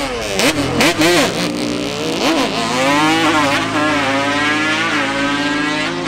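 Quad ATV and side-by-side UTV engines at a drag-strip start line: quick throttle blips, then a launch about two and a half seconds in, with the engine pitch climbing hard and dipping briefly at each of several gear shifts as they accelerate away.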